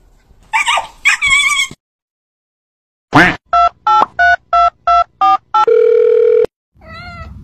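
Two short dog barks, then a quick falling sweep and seven short telephone keypad (DTMF) beeps in a row, one for each press of a finger on a white kitten's belly, ending in a longer steady phone tone. Near the end a kitten starts to mew.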